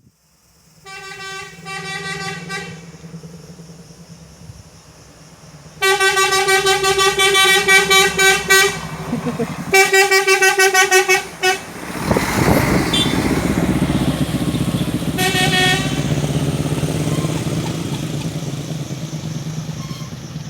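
Bus horn blowing one rapidly pulsing note: a short blast about a second in, a long series of loud blasts from about six to eleven seconds, and a last short blast about fifteen seconds in. From about twelve seconds the heavy rush of a large vehicle passing close comes in and slowly fades.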